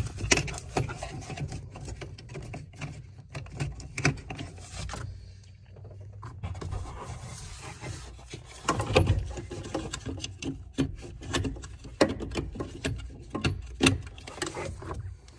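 Irregular clicks, knocks and scraping of hand work on plastic wiring-harness connectors under a car's dash, as large multi-pin connectors are fitted into their receptacles.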